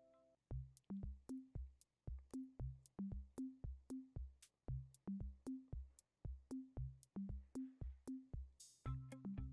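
Background music: an electronic drum-machine beat with a steady bass drum and sharp clicks; the sustained keyboard chords drop out shortly after the start and come back near the end after a brief hiss.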